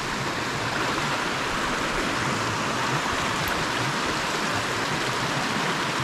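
A mountain creek rushing steadily over rocks: an even, unbroken wash of flowing water.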